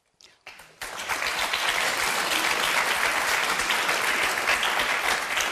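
Studio audience applauding, the clapping starting about half a second in and holding steady.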